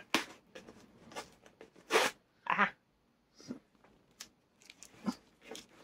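Cardboard box being opened by hand and packing tape peeled off it: a few short rips, rustles and scrapes, the loudest about two seconds in.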